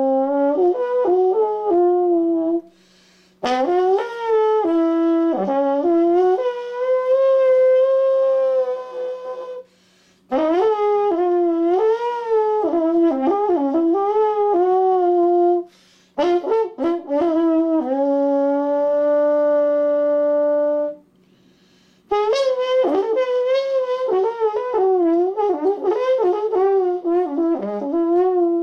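Soprano trombone played solo in improvised phrases, with slides and bends between notes and a few long held notes. The phrases are broken by four short pauses for breath.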